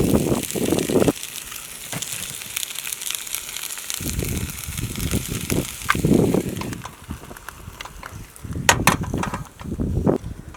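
Eggs and cabbage frying in a pan on a camp stove, sizzling with a hiss and fine crackles that thin out after about six seconds. Low handling knocks come and go, and a few sharp utensil clicks sound near the end.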